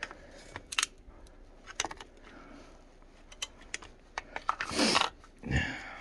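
Small hand wrench clicking and clinking on a tractor battery's terminal clamp bolt as the negative cable is loosened, in short scattered clicks with a quick run of them about four seconds in. A brief louder rustle comes just before the end.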